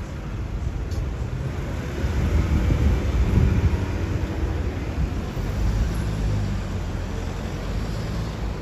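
City street traffic: a low engine-and-tyre rumble from vehicles, swelling as one passes close about three seconds in.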